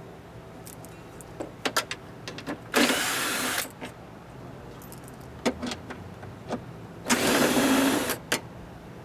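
Two short bursts of a power driver spinning out 10 mm bolts, one about three seconds in and a longer one near the end, with sharp clicks and taps of metal between them.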